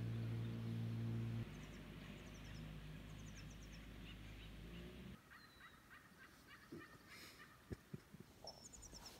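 A small boat's outboard motor running at a steady pitch. It drops in level about a second and a half in and stops about five seconds in. Faint high bird chirps sound over it and afterwards.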